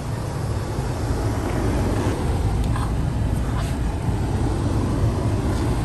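Car running, heard from inside the cabin: a steady low rumble, with a few faint clicks partway through.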